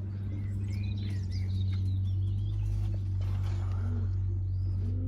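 Small birds chirping in short high calls over a steady low hum, with a few soft low coo-like notes later on from the loft.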